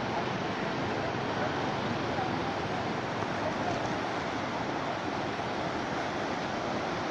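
The River Ganga in full flood after heavy rain, its water rushing with a steady, even sound.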